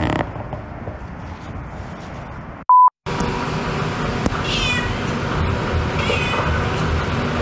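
Domestic cat meowing twice, two short calls falling in pitch, about halfway through and again a second and a half later. Before them a brief, loud, steady electronic beep cuts in, with a moment of silence on either side of it.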